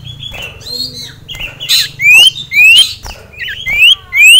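Common iora singing in an agitated state: after softer chattering notes, three loud clear whistles, each rising in pitch.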